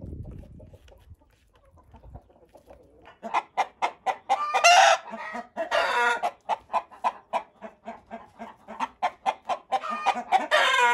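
Chickens clucking in a rapid run of short calls, several a second, that begins about three seconds in, with three longer, louder calls mixed in. A brief low rumble comes at the start.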